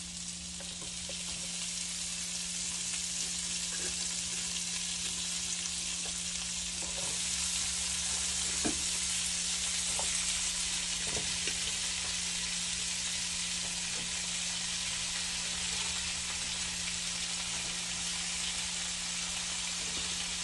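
Onions and cabbage sizzling in a hot skillet, the sizzle growing louder a couple of seconds in and again around seven seconds in, with a few light clinks of a utensil against the pan.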